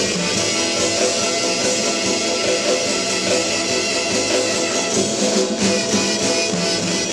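Instrumental 1959 rock and roll recording with guitar, playing steadily.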